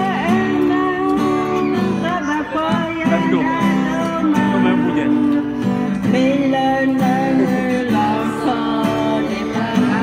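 An elderly woman sings into a corded microphone over a recorded backing track with guitar, karaoke-style, her voice amplified over the music.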